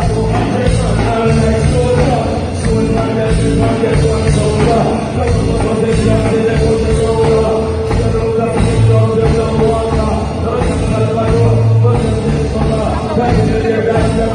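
Live reggae band and singer in concert, heard through an audience member's phone recording: heavy bass notes and band under a singer's voice, loud and unbroken.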